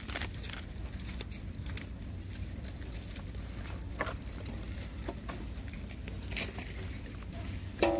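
Puppies chewing and nosing through grass, dry leaves and plastic, making scattered small crackles and clicks. A puppy gives a short whine right at the end.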